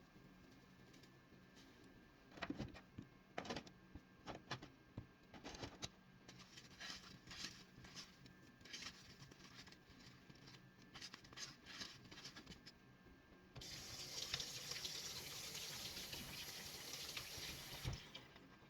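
Scattered light knocks and clicks of handling in a kitchen, then a kitchen tap running for about four seconds before it is shut off with a knock.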